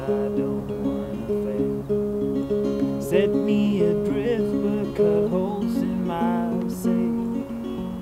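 Levin acoustic guitar fingerpicked in a folk song's instrumental passage, its notes ringing over one another.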